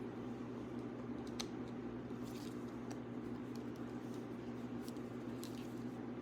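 Faint, scattered plastic clicks and taps from handling a Godzilla action figure while trying to fit its battle-damage piece, over a steady low hum.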